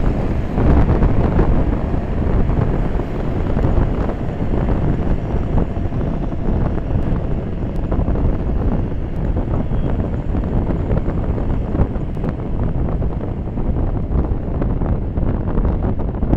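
Wind buffeting the microphone of a camera on a moving scooter at road speed: a loud, steady, fluttering rumble.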